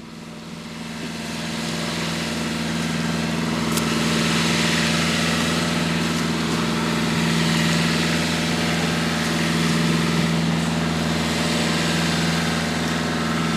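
A fishing boat's engine running steadily, growing louder over the first few seconds and then holding an even pitch.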